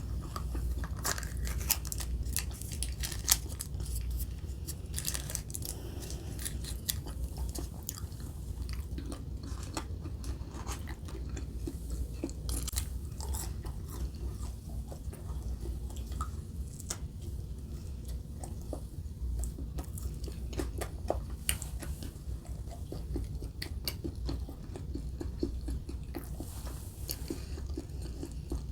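Close-miked chewing and biting of Burger King fast food, with crunches and many small sharp clicks throughout.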